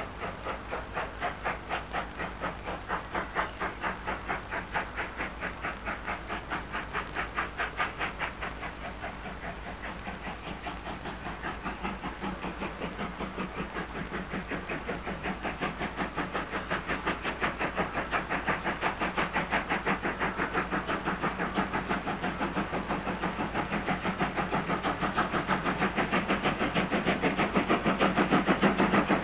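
Steam locomotive hauling a train, its exhaust chuffing in an even beat of a few strokes a second, growing louder as it comes closer.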